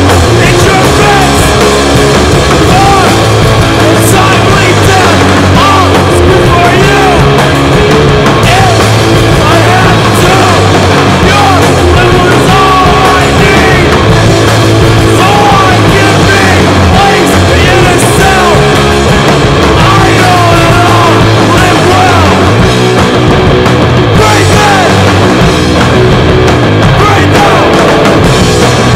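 Loud, distorted punk rock played by a full band: drums, distorted guitar and bass, with yelled vocals over the top.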